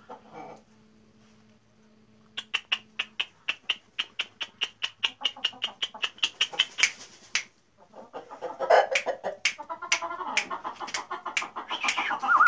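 Shamo rooster crowing in the second half, over a fast, even clicking of about six clicks a second that starts a couple of seconds in.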